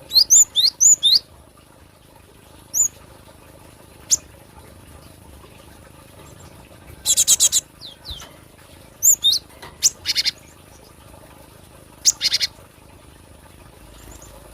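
Cinereous tit (gelatik batu) calling: a quick run of high, swooping chirps at the start, then scattered single high notes and several short, harsh, buzzy rattles.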